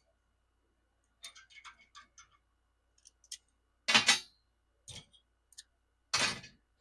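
Metal tools and parts being handled on a workbench: a run of small light clicks, then two louder clunks about two seconds apart, with a sharp click between them.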